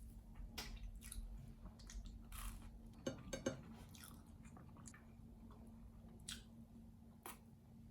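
Faint chewing and crunching, with short sharp clicks scattered through and a cluster of them about three seconds in, over a low steady hum.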